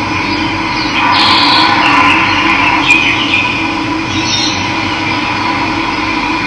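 Steady rush of running water, with birds chirping over it a few times.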